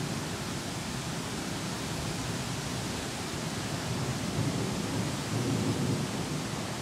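Steady hiss of a thunderstorm's rain with low rolling thunder under it. A rumble fades out at the start, and a fainter one swells about five seconds in.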